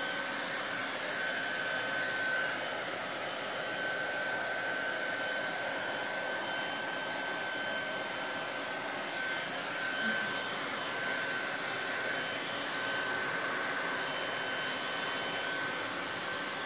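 Handheld hair dryer running steadily, a constant rushing hiss with a faint high whine in it, switched off at the very end.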